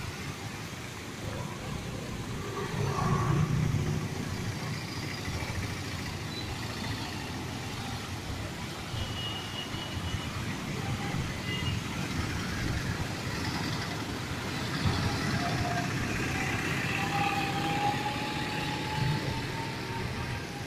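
Road traffic through a flooded street: scooters, motorcycles and auto-rickshaws passing with their engines running and tyres swishing through standing water, one passing close about three seconds in.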